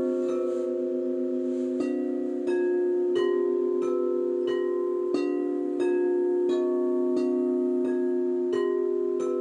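Frosted quartz crystal singing bowls struck with soft mallets, one bowl after another about every 0.7 s, each ringing on under the next so the tones overlap into a slow melody. The tune is a Sundanese gamelan piece played on the bowls.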